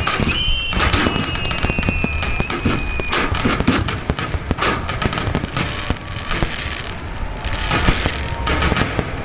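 Star mine fireworks barrage: a dense, rapid run of launches and shell bursts with crackling over a low rumble. A high whistle holds through the first two or three seconds.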